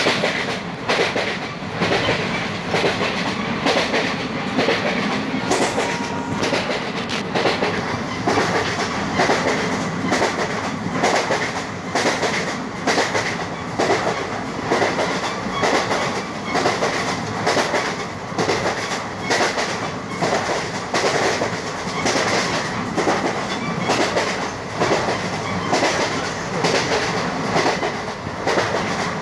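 Passenger coach wheels running over the rail joints at speed, a steady rhythmic clickety-clack over a continuous track rumble, heard from an open coach doorway.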